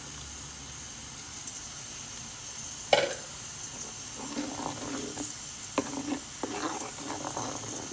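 A steel spoon stirring a thick coconut-and-curd curry in a clay pot. It knocks once against the pot about three seconds in, then scrapes and clatters in quick uneven strokes, over a steady sizzling hiss.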